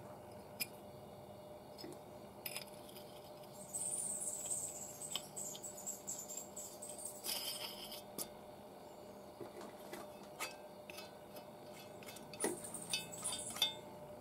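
Light metal clinks and scraping as a perforated metal spinner head and a blender motor are handled and fitted together, with scattered clicks and two longer stretches of rasping.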